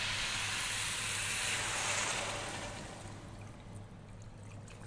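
Beef sizzling in a hot stainless steel pot as water is poured in from a plastic jug. The loud sizzling hiss dies down about two and a half seconds in, leaving the quieter sound of the water pouring and splashing with a few small ticks.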